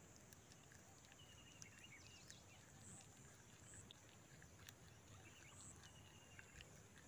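Near silence: faint outdoor ambience with a few faint, thin bird calls.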